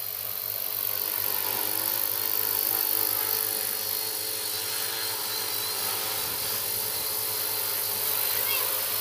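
Large multirotor agricultural spray drone hovering and flying under a 10 kg payload of water, its propellers giving a steady multi-tone drone. The sound grows louder over the first few seconds as it comes closer, then holds.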